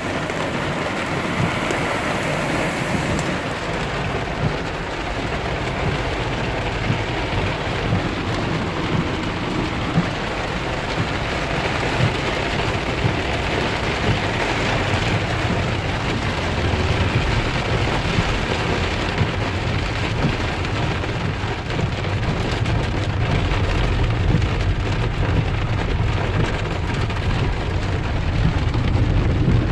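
Heavy rain pouring down on a car, a dense steady hiss with a low rumble that grows louder over the last several seconds.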